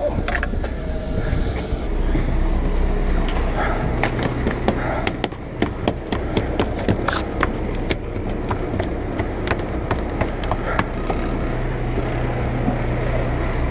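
A sportfishing boat's engine drones steadily, with scattered clicks and knocks of gear and handling on the deck.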